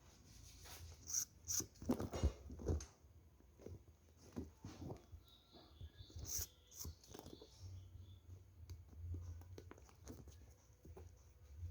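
Faint handling sounds of hand-stitching a football's panels: scattered small clicks and rasps as the needle and thread are worked through the seam.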